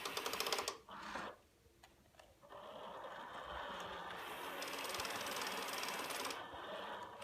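Vintage Deluxe Reading Crusader 101 toy car's small motor and gears whirring as it is driven and turned: two short bursts at the start, a brief pause, then a steady run of several seconds.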